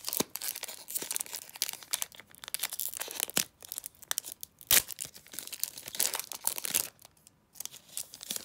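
Pokémon trading cards being handled and shuffled out of an opened booster pack: a run of dry crinkling and clicking as the cards slide and flick against each other, with a couple of sharper snaps around the middle, tailing off near the end.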